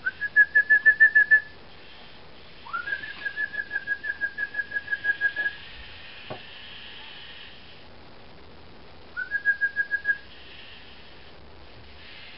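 Lego Mindstorms EV3 robot's motors whining in three bursts, each rising quickly in pitch at the start and then pulsing on and off about eight times a second; the longest burst lasts about three seconds. A single click comes about six seconds in.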